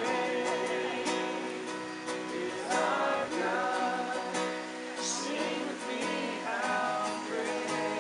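Music: a strummed acoustic guitar with voices singing along.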